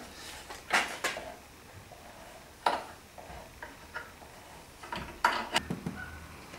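Scattered sharp wooden knocks and clicks as boards, clamp pads and clamps are handled and tapped against a glued-up wooden box, with a quick cluster of knocks about five seconds in.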